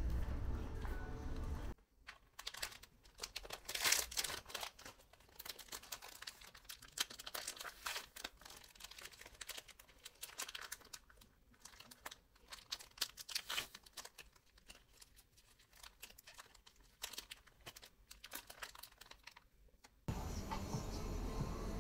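Irregular crinkling and crackling close to the microphone, many small sharp clicks with no steady rhythm, starting about two seconds in and stopping suddenly near the end. Before and after it, a steady low room hum.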